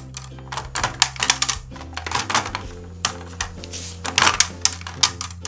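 Rapid, irregular plastic clicking and tapping from a toy frying pan as its handle button is pressed and the plastic patty moves on its grate, over soft background music.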